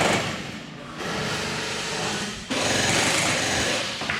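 Electric gel blasters firing on full auto: a fast mechanical rattle of motor and gearbox in bursts, easing off just before a second in and starting up again louder about two and a half seconds in.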